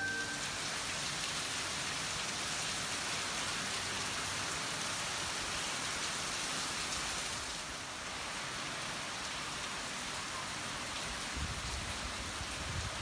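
Heavy rain falling steadily, an even hiss of drops on the temple's roofs and wet courtyard.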